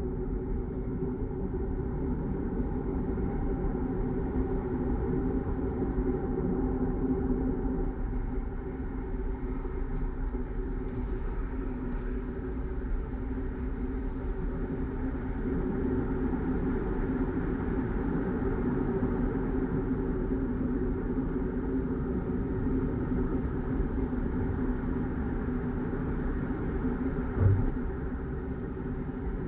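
A car driving steadily along a city road, heard from inside the cabin: a constant engine and tyre rumble, with one brief thump near the end.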